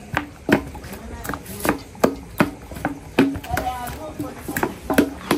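Steady rhythmic knocking, about two to three sharp strikes a second, some followed by a brief low ring.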